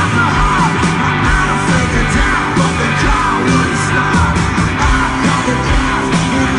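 Live rock band playing loud: drums, bass, electric guitar and keyboard, with a voice singing over them.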